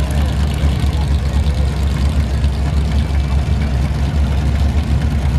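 Off-road competition trucks' engines running, a steady low rumble.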